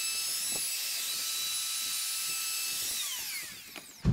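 Electric plunge router running at full speed with a steady high whine, making the final clean-up pass through a worktop jig on a laminate kitchen worktop. About three seconds in it is switched off and winds down, its whine falling in pitch, and a short knock follows at the very end.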